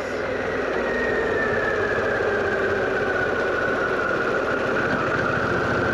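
Harley-Davidson Pan America's 1250 V-twin engine running steadily, with a faint high whine that slowly falls in pitch.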